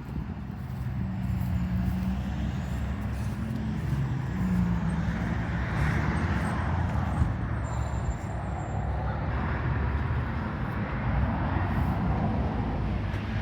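Steady low outdoor rumble, like road traffic, with a rushing noise that swells around the middle.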